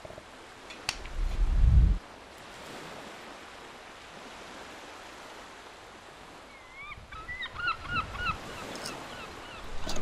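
Sea ambience: a click, then a heavy low rumble for about a second, then a soft steady wash of water. A run of short, quickly repeated bird calls comes near the end.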